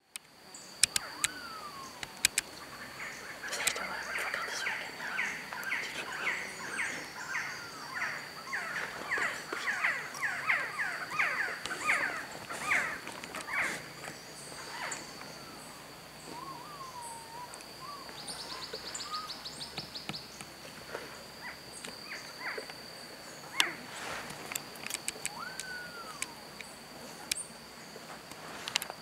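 Resplendent quetzals calling in breeding season: a long run of whistled, rising-and-falling notes, about two a second, through the first half, then scattered single whistled calls. A steady thin high tone runs underneath, with a few sharp clicks.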